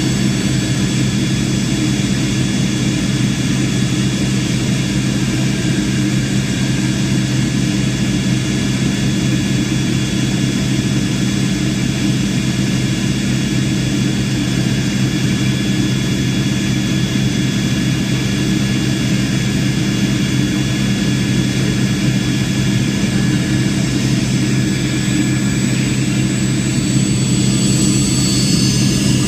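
Airplane engines running at a steady level: an even, unchanging rush of noise with a constant low hum.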